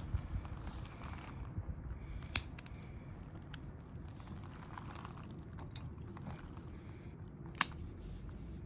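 Small fire burning in a micro stove, crackling quietly, with two sharp pops: one a couple of seconds in and a louder one near the end.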